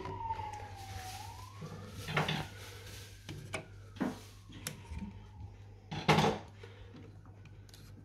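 Sharp clicks and metal clatter of a screwdriver working at a Baxi combi boiler's pump proving micro switch, loudest about six seconds in. Behind them a faint wail slides slowly down, up and down again, over a steady low hum.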